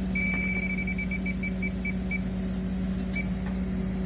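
Electronic refrigerant leak detector beeping: a fast run of high beeps that slows to about four a second and stops after about two seconds, with one more beep near the end. It is picking up R134a leaking from the fridge's evaporator. A steady low hum runs underneath.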